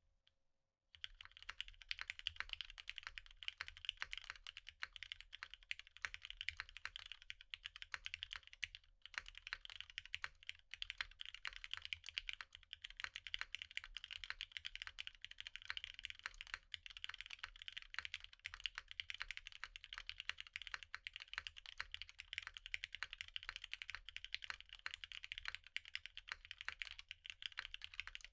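Continuous fast typing on a custom F1-8X mechanical keyboard with lubed Hyperglide Black linear switches on an aluminium plate and PBT keycaps, starting about a second in.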